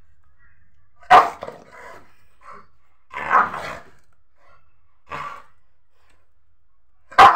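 Rottweiler barking: four separate barks a second or two apart, the loudest about a second in and at the very end.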